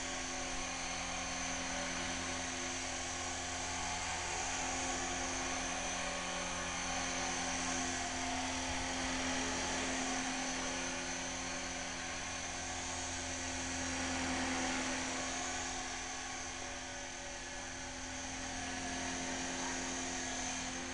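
Align T-Rex 450 V2 electric RC helicopter in flight: a steady high whine from its electric motor and gears over the buzz of the spinning rotor. Its loudness swells and eases slightly as it flies about, most noticeably about two-thirds of the way through.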